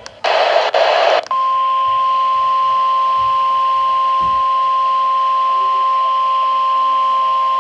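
NOAA Weather Radio alert signal: a brief burst of harsh SAME digital header data, then the steady 1050 Hz warning alarm tone over radio hiss.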